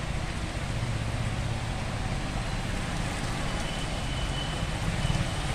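Heavy rain pouring steadily, an even rushing hiss.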